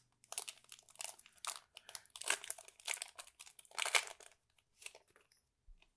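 Foil wrapper of a trading card pack crinkling and tearing as it is opened by hand. A quick run of crackles thins out about four seconds in.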